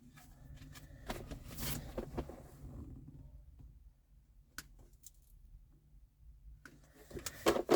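Rustling, scraping and a few sharp clicks of hands handling wiring and small tools.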